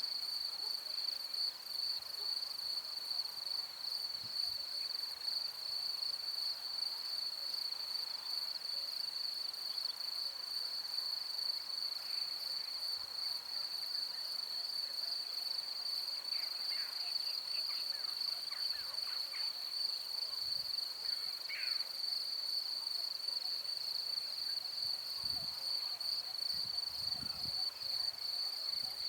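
Crickets trilling in a grassy field: one steady, unbroken high-pitched trill. A few brief, higher sliding chirps come through about two-thirds of the way in.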